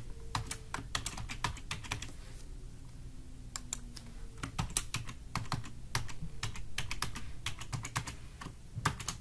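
Typing on a computer keyboard: quick, irregular keystrokes, with a pause of about a second a third of the way in before the typing resumes.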